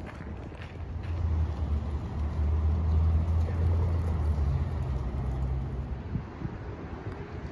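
Low, steady engine drone of a passing motor vehicle, swelling about a second in and fading out near the six-second mark.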